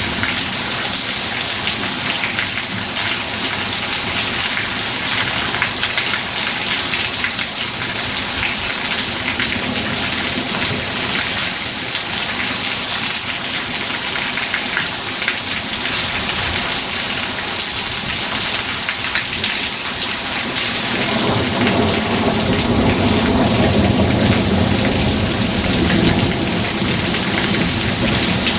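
Heavy rain falling steadily, with a long rolling rumble of thunder that builds about two-thirds of the way in and lasts several seconds.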